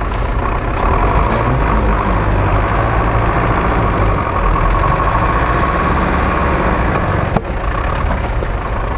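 GAZ-66 off-road truck's engine running steadily under load as the truck crawls over rough ground, with a wavering high whine through the middle and a single sharp knock about seven seconds in.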